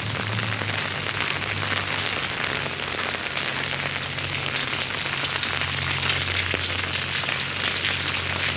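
Heavy rain falling, a steady dense hiss, with a low steady hum underneath that starts about as the rain sound begins.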